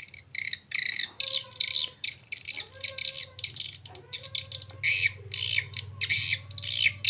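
Recorded edible-nest swiftlet calls, a mating-call lure track for swiftlet houses, played through the horn tweeters of a USB audio player: rapid, high chattering chirps and twitters in quick bursts, over a steady low hum.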